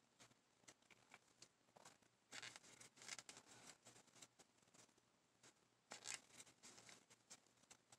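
Faint scratching and rustling of dry yarn being worked with a crochet hook, in short irregular scrapes, a little louder about two and a half seconds in and again around six seconds.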